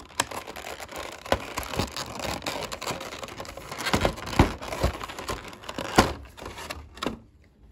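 Packaging being unwrapped by hand: continuous crinkling, with a series of sharp clicks and knocks, the loudest about four and six seconds in.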